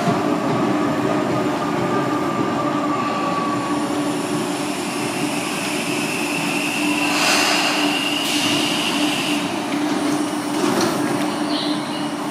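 Electric commuter train running on the rails, heard from aboard: a steady rumble with a low hum. A high wheel squeal comes in about three seconds in and fades out after about nine seconds.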